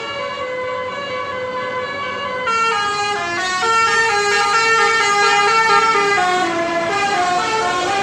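Bus 'telolet basuri' musical air horn playing a melody: several horn tones sound together and step from note to note every fraction of a second, getting louder about two and a half seconds in.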